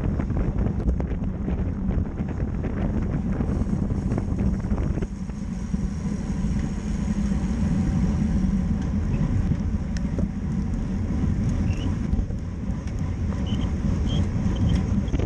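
Wind rushing over the microphone of a road bike's onboard camera at racing speed, about 25–29 mph, with tyre and road noise under it. It is a steady low rushing that eases a little about five seconds in.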